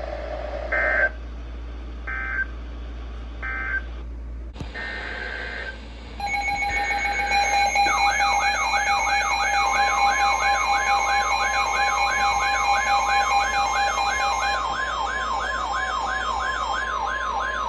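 Emergency Alert System data tones: three short electronic bursts about a second and a half apart close out one alert, and after a click another burst opens the next. Then a loud attention signal starts, a siren-like warble rising and falling about three times a second over a steady tone.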